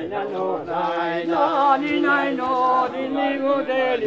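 Several men's voices singing a Georgian folk song together in harmony, with long, chant-like held notes.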